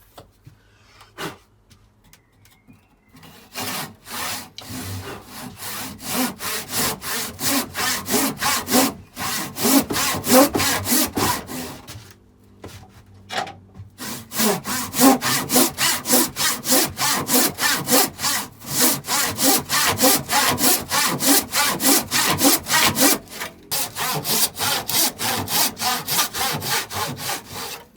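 Handsaw ripping a length of square timber along the grain: a fast, even run of back-and-forth strokes that starts a few seconds in, stops for about two seconds near the middle, then carries on.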